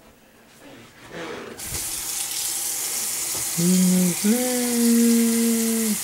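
A tap turned on about a second and a half in, water running steadily into a sink. Over the running water a steady low hum sounds twice, first briefly and then for about a second and a half.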